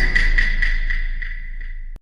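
Electronic notification tone: a high, fluttering steady tone over a deep bass rumble, fading slowly and then cutting off abruptly at the end.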